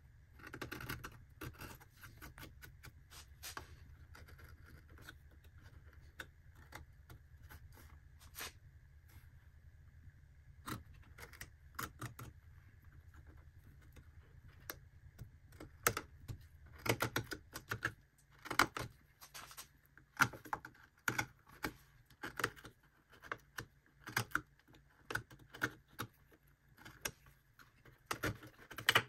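Carving knife cutting and scraping cottonwood bark in short, irregular strokes, with small clicks and scrapes that come thicker in the second half. A faint steady hum stops about two-thirds of the way in.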